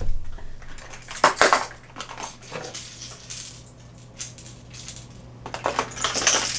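Fishing lures and hooks clinking and rattling as they are rummaged through, in several bursts that are loudest about a second in and in the last second.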